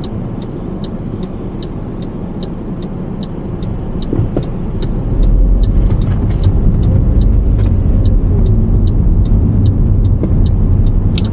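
Car turn-signal indicator ticking steadily, about two and a half ticks a second, over engine and road rumble heard from inside the car. The low rumble grows louder about five seconds in.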